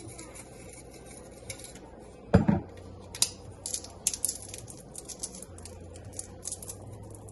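Dry bay leaves crackling as they are crumbled by hand into a glass mason jar of whole pickling spices: a run of small, crisp crackles and ticks, thickest in the second half. One louder short thud about two and a half seconds in.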